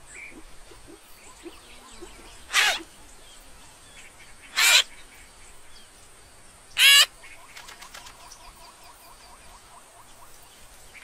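A bird calling three times, about two seconds apart, each call a short warbling cry over a faint background of savanna ambience.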